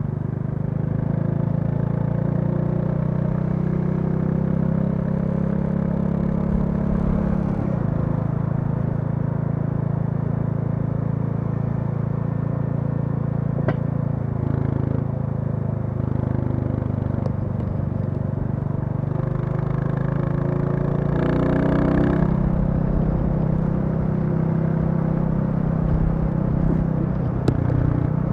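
Royal Enfield Classic 350's single-cylinder engine running steadily under way, its pitch rising for a couple of seconds around two-thirds of the way through as it revs up. A few sharp clicks are heard.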